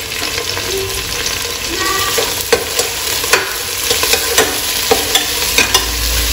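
Onions, green chillies and freshly added mint and coriander leaves sizzling in hot oil and ghee, stirred with a spatula that scrapes and clicks against the pan every so often.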